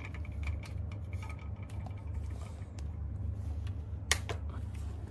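Low steady rumble of room tone, with a few faint clicks, two of them close together about four seconds in.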